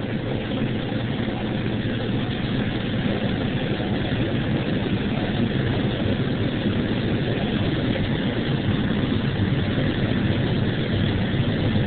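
John Deere 9760 combine running steadily while harvesting corn, its engine and threshing machinery heard as a constant drone from inside the cab.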